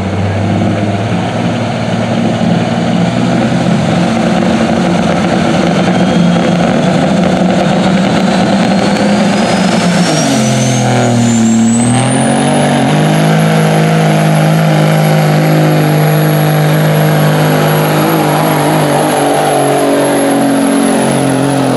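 International semi truck's turbocharged diesel engine running under heavy pull, with a turbo whistle that climbs steadily in pitch for several seconds and then holds high. About ten seconds in, the engine note dips and shifts, then settles into a steady, hard-working drone.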